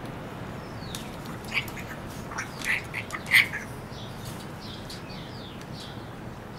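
Parrot squawking: a run of short, harsh calls over about two seconds, the loudest near the middle, followed by fainter high, falling chirps.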